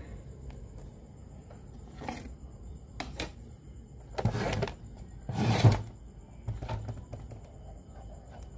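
Handling noise on a workbench while a portable radio-cassette player is worked on: scattered clicks and knocks, with two louder half-second bursts of rubbing noise about four and five and a half seconds in.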